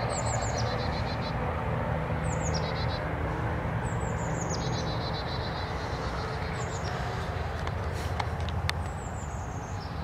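A small songbird singing the same short phrase over and over, about every two seconds: a high falling note running into a fast trill, over a steady low rumble. A few sharp clicks near the end.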